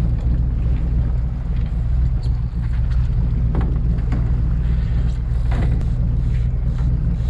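A fishing boat's engine running steadily, a low even drone, with two short faint knocks about three and a half and five and a half seconds in.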